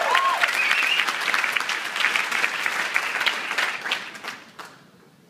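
Audience applauding, the clapping dying away after about four and a half seconds.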